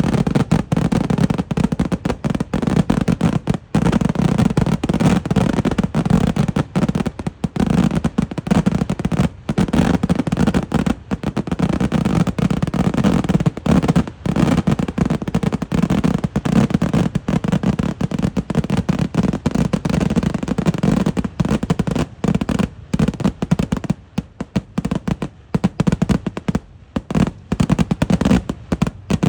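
Kerala eeduvedi fireworks: an unbroken barrage of explosions fired in very rapid succession, the bangs merging into a continuous rattle. The barrage thins briefly a few seconds before the end, then picks up again.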